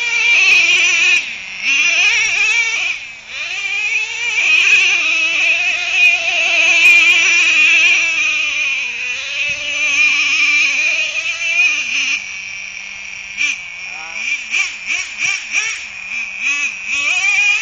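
Small nitro (glow-plug) engine of a custom RC truck running under load, its high-pitched whine rising and falling as the throttle is worked. About twelve seconds in it settles to a steady idle, then revs again in quick short blips.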